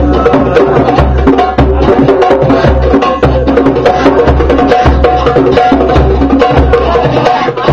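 Djembes and other hand drums played together in a fast, steady groove, with deep bass strokes and sharp slaps, and an electric guitar playing along.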